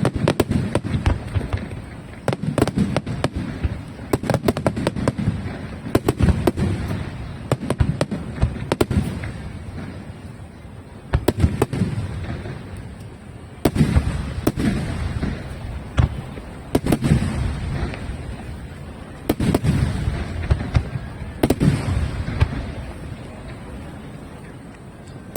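Large aerial firework shells bursting in volleys, a cluster of sharp cracks with deep booms every two to three seconds.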